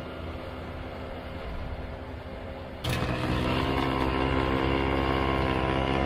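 Bobcat skid-steer loader's engine running steadily at one pitch while its snow blower attachment throws snow. The sound jumps suddenly louder about three seconds in.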